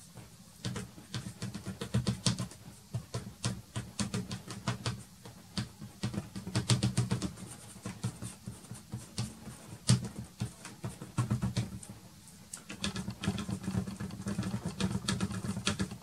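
Soft pastel stick scratching and tapping on pastel-primed matte board in quick, short strokes. The strokes begin about half a second in and pause briefly about twelve seconds in.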